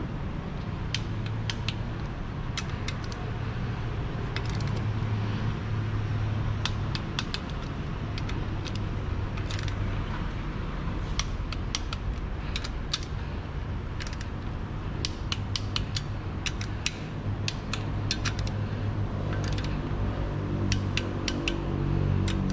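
Ratchet and torque wrench clicking irregularly, with light metal clinks, as the engine's lower-block bolts are run down and tightened to torque. A steady low hum runs underneath.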